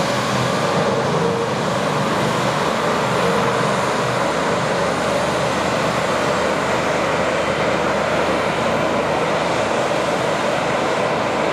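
Embraer 195's twin GE CF34-10E turbofan engines running steadily at taxi power as the airliner taxis past, an even jet rush.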